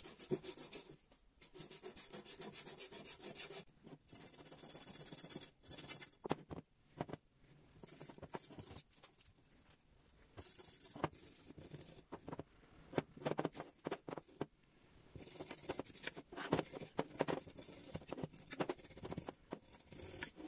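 Steel wire brush scrubbing flaking old paint off metal bicycle fork legs, in bursts of quick back-and-forth scratchy strokes with short pauses between them.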